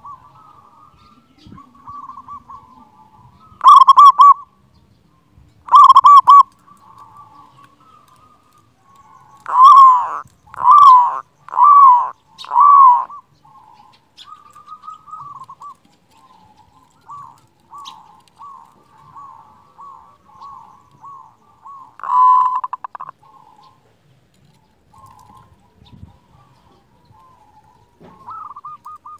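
Zebra dove (perkutut) cooing: loud ringing coos about four and six seconds in, a run of four about ten to thirteen seconds in, and another a little past twenty-two seconds, with softer rapid cooing trills between them.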